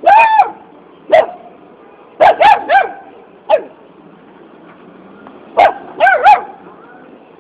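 A puppy yapping about nine times in quick clusters of one to three short, high-pitched barks, the first a little longer than the rest. It is begging for a dog biscuit held out in front of it.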